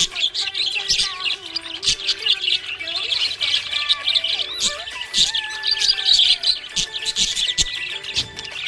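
A flock of small pet parrots chirping and twittering rapidly and without pause, a dense overlapping chatter of short high chirps.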